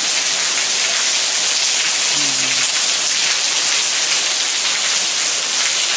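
Heavy rain pouring steadily on the ground and paving, a dense, even hiss.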